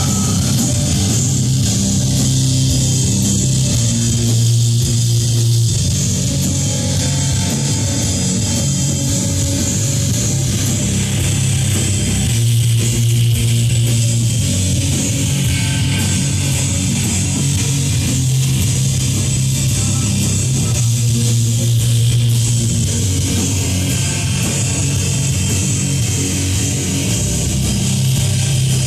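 Doom metal band playing live: heavily distorted electric guitar and bass guitar hold slow, long low chords that change every few seconds, with drums underneath.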